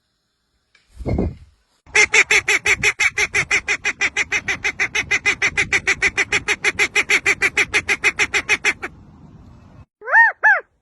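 A bird calling a rapid, even series of harsh honking notes, about seven a second for roughly seven seconds, after a single low thump. Near the end a different call begins: arched whistled notes that rise and fall.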